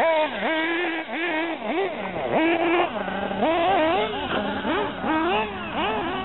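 Several radio-controlled racing buggies with their motors revving up and down together, making overlapping whines that rise and fall in pitch every half second or so as they race round the track.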